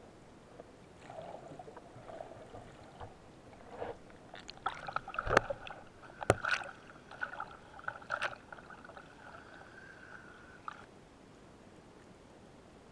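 Water splashing and sloshing around a speargun-mounted camera as a freediving spearfisher surfaces and dives again, with sharp knocks of gear against the camera. A steady high tone runs through the middle for about six seconds and cuts off suddenly.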